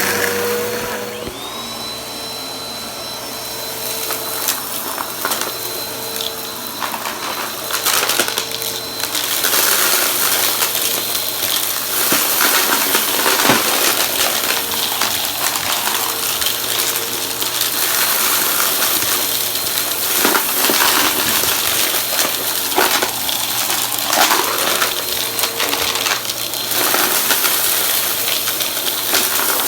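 Vacuum cleaner running and sucking up crunchy debris, the bits rattling and clicking through it in quick irregular ticks. A thin high whine sounds for the first several seconds.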